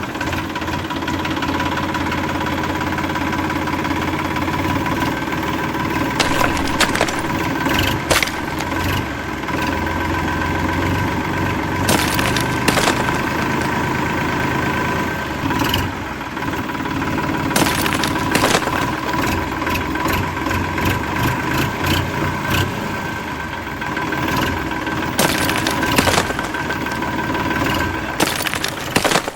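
Small motor of a DIY mini tractor running steadily with a constant whine, with scattered sharp clicks and knocks over it.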